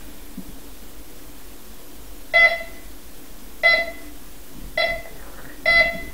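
Metal detector giving four short electronic beeps, about a second apart, starting about two seconds in as the search coil is swept over the carpet. The beeps are its target tone, signalling metal under the coil.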